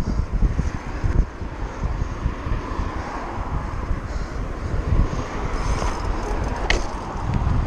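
Wind buffeting the microphone with a steady, uneven rumble, as heard while riding a BMX bike.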